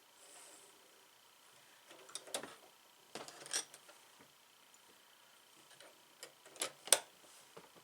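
Scattered clicks and taps of hands handling a home sewing machine while its bobbin is rethreaded, a handful of sharp clicks with the loudest near the end.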